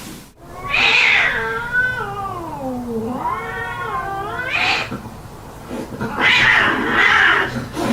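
Cats caterwauling in a fight: one long wavering yowl that sinks in pitch and climbs again, then a harsh, noisy screech near the end.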